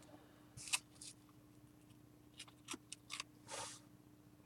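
Faint handling of trading cards: a few soft slides and light clicks as cards are moved and flipped through by hand.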